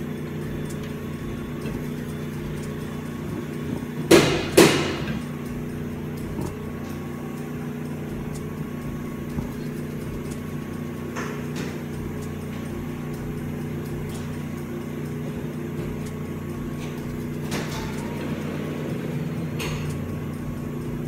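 Steady low hum of commercial kitchen machinery, with two sharp knocks close together about four seconds in and a few faint clicks later on.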